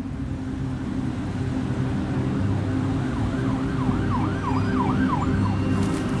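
City traffic rumble with an emergency-vehicle siren in fast yelp mode, its pitch sweeping up and down about three times a second from around three seconds in until shortly before the end. A run of sharp crackling clicks begins just before the end.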